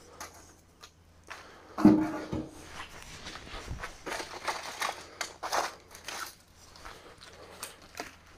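Sticks of birch kindling being handled and laid at a small wood stove: scattered light knocks, scrapes and clicks of wood.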